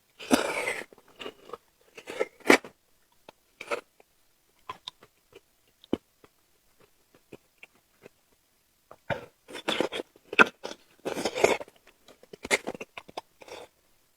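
Close-up mouth sounds of eating: bites and chewing in irregular bursts, a quieter stretch in the middle with scattered small clicks, then a denser run of chewing from about nine seconds in.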